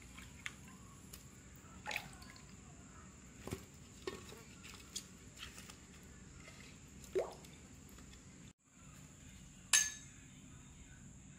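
Wet pumpkin pieces handled and set into a clay pot: scattered soft knocks and clinks with water dripping, the loudest a sharp knock near the end.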